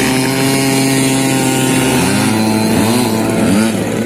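Extra 300 radio-controlled aerobatic plane's engine and propeller running at a steady pitch, then dropping about two seconds in and swinging up and down in quick short swoops as the throttle and the plane's flight path change.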